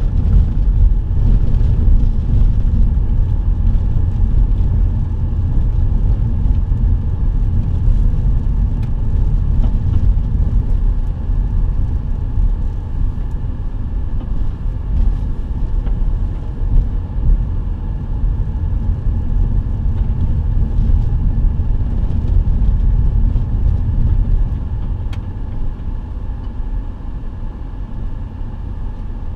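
Vehicle driving on a dirt road, heard from inside the cabin: a steady low rumble of engine and tyres on the dirt, with a few faint ticks, easing slightly near the end.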